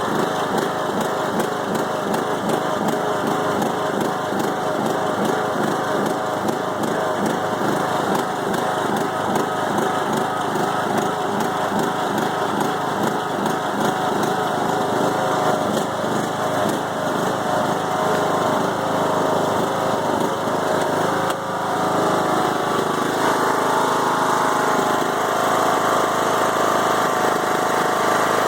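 Briggs & Stratton Intek 20 HP engine on a Craftsman riding mower idling roughly, its running uneven and wavering. The owner traces the rough idle to a hydrolock with fuel in the oil, later repaired with a new head gasket. About three quarters of the way in, the running turns steadier and a little louder.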